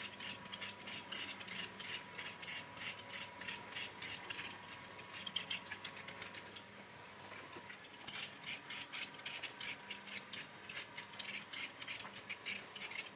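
Vegetable peeler scraping the skin off a raw potato in quick short strokes, a few a second, with a brief lull about halfway through.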